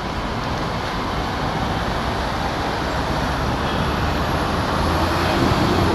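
Steady road traffic noise, with a low engine hum from a nearby vehicle growing louder in the last couple of seconds.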